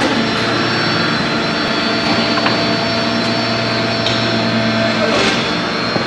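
Steady machine drone with several held tones from a medium-frequency 300 kW induction heating machine running while steel bars heat in its coils, with a faint knock about two and a half seconds in.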